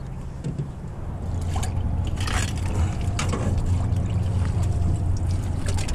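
Dip net swept through the water along a piling, sloshing and splashing most in the middle, over a steady low rumble.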